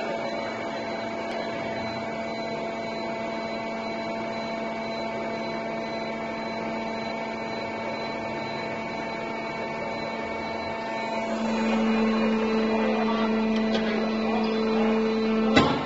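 Hydraulic steel plate stitching machine running with a steady motor hum. About eleven seconds in the hum grows louder and a second, higher tone joins it, and a single sharp clunk comes just before the end.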